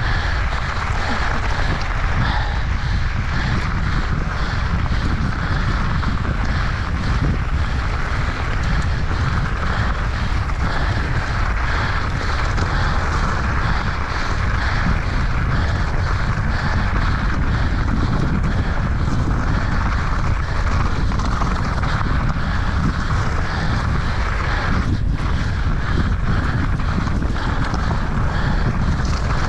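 Steady wind noise buffeting an action camera's microphone as a mountain bike descends at speed, a constant rushing roar with no break.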